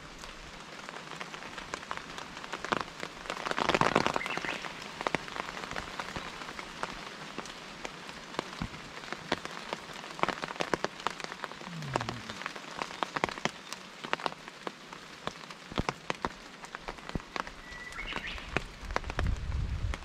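Steady rain falling, with many individual drops tapping sharply close by. The rain swells louder for a moment about four seconds in.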